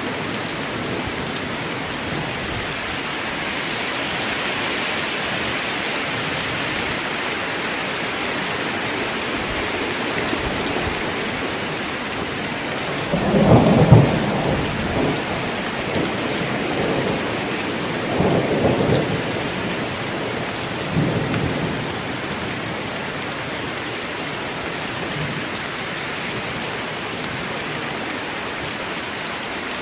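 Steady rain falling in a forest. About halfway through, thunder rolls in as a loud crack-and-rumble, followed by a few weaker rumbles over the next several seconds.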